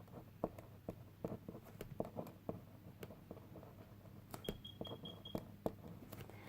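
Pen writing on paper: faint, irregular taps and scratches. A quick run of about five short, high beeps comes a little past the middle.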